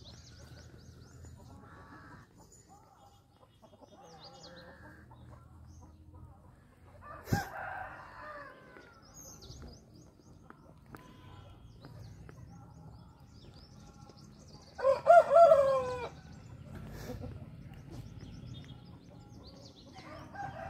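A rooster crows once, loudly, about three-quarters of the way through. Earlier, about a third in, there is a sharp knock and a fainter call, and small birds chirp faintly throughout.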